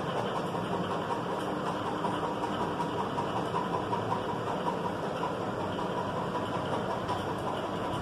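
Steady mechanical hum and low rumble, unbroken throughout, with a faint steady whine near the top.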